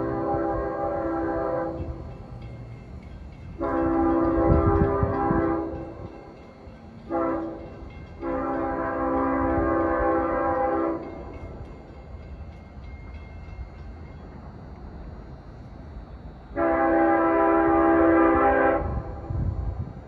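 LIRR locomotive 506's multi-chime air horn sounding the long-long-short-long grade-crossing signal as the train approaches, then one more long blast near the end. A low train rumble runs beneath the horn.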